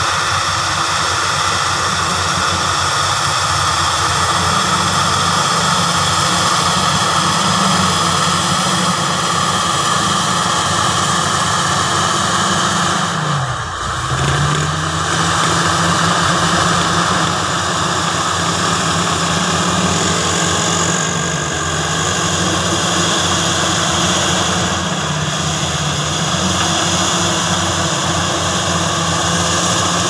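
Crawler bulldozer's diesel engine running steadily under load as it pushes soil. About halfway through the engine note drops sharply for a moment and then picks back up.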